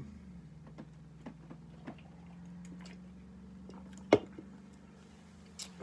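Small clicks and swallowing sounds of a man drinking from an aluminium drink can, over a steady low hum. About four seconds in there is one sharp knock as the can is brought down.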